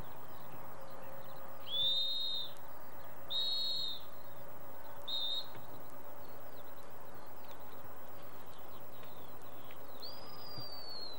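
A dog-handling whistle blown in separate blasts: two blasts of under a second around two and three and a half seconds in, a short blast about five seconds in, and a longer, slightly falling blast near the end. Small birds chirp faintly throughout.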